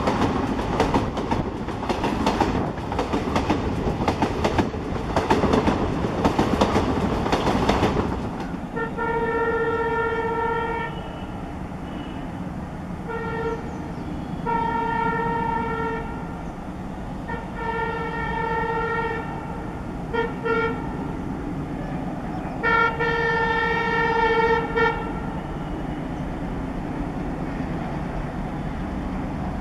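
A passing train at speed, its wheels clattering over the rail joints, loudest in the first eight seconds. Then a WDM 3D diesel locomotive approaches over a steady running rumble, sounding its multi-note horn in a series of long and short blasts, the last one long.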